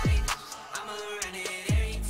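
Music with a beat: deep kick drums that slide down in pitch, about once a second, with sharp snare-like hits between them.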